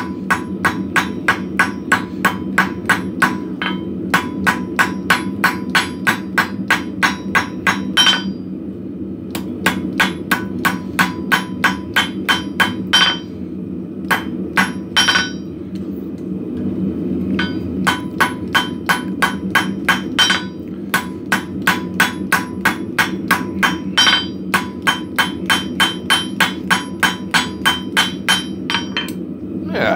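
Hand hammer striking forged steel in quick runs of about three ringing blows a second, with short pauses between runs, as the corners of a plasma-cut hook blank are knocked down. A steady low hum runs underneath.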